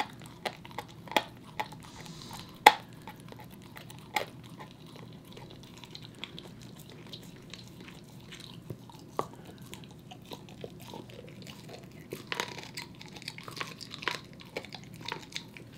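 A corgi gnawing a raw meaty bone: irregular crunches and sharp cracks of teeth on bone, the loudest about two and a half seconds in. The gnawing thins out through the middle and gets busier again near the end.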